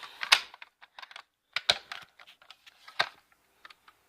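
Clicks and clacks of a Honeywell BG-12 fire alarm pull station being worked by hand while trying to reset it: three sharper clacks a little over a second apart, with lighter clicks between them.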